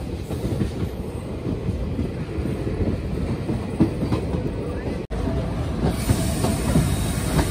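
Indian Railways passenger coach running along the track, heard from its open doorway: a steady rumble with the wheels clattering over the rails. The sound drops out for an instant about five seconds in.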